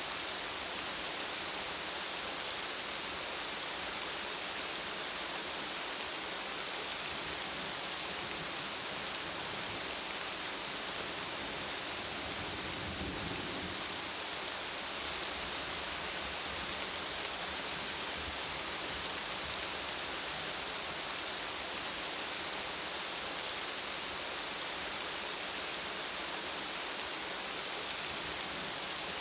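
Steady rainfall, a dense even hiss of drops on hard surfaces, with a brief low rumble swelling about halfway through.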